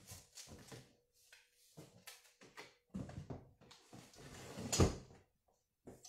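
Goods being packed by hand into a cardboard box: irregular rustling, scraping and knocks as items are pushed and fitted in, with one loud knock about five seconds in.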